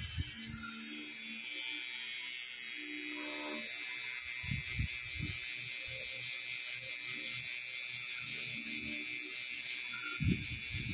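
Permanent-makeup tattoo pen buzzing with a steady high whine as it works an eyebrow, the buzz coming up about a second in. A few soft knocks about five seconds in, and a louder one near the end.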